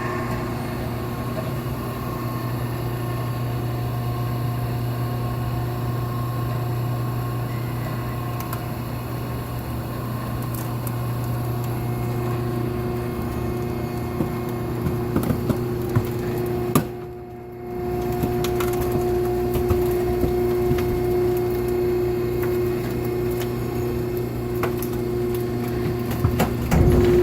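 Ohio Baler Company vertical cardboard baler running a compression cycle: its electric hydraulic power unit hums steadily while the ram presses down on the load, with crackling and creaking of cardboard being crushed. About 17 seconds in the sound drops briefly and returns as a higher-pitched steady hum.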